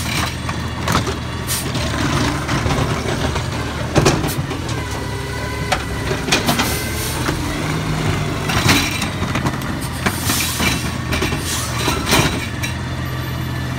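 Automated side-loader garbage truck's lifting arm cycling a wheeled cart: whining as it runs the cart up to tip it into the body and back down, with sharp knocks and clunks of the cart and arm, the strongest about four seconds in. The truck's diesel engine runs steadily underneath.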